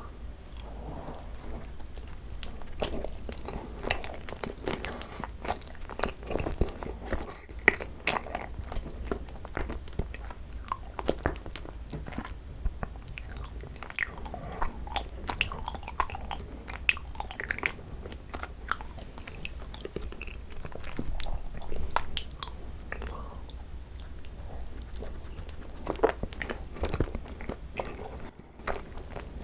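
Close-miked biting and chewing of soft rice cakes filled with cream cheese, with many short irregular mouth clicks and crunches.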